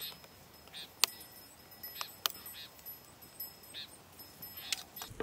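A kitchen knife cutting and trimming a thin tree branch: a few sharp, separate clicks of the blade striking the wood, the loudest about a second in. Short high calls repeat about once a second behind them.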